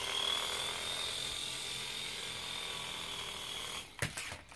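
Air Hogs Twin Thunder toy RC tandem-rotor helicopter's small electric motors and twin rotors whirring with a steady high whine on a low battery. The whine cuts off just before the end, followed by a few sharp knocks as the helicopter lurches across the table.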